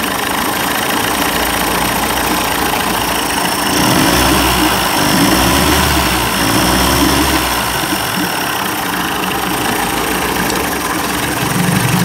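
A 1990s 30 hp Evinrude two-stroke outboard running at idle in a test barrel. The engine note grows a little louder for a few seconds in the middle. It is running better after a carburetor clean-out aimed at a lean-sneeze condition.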